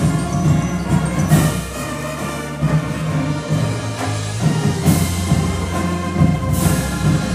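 Full marching band of brass, woodwinds, mallets and percussion playing together, with low brass holding a bass line that shifts pitch and cymbal crashes three times.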